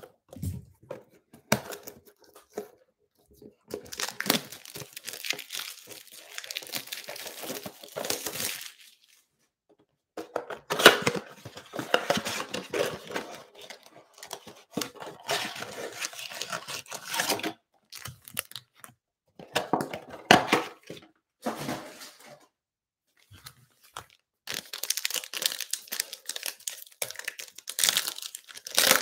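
Foil trading-card packs and a cardboard hanger box being torn open by hand, with the foil wrappers crinkling. The tearing comes in several bursts separated by short pauses.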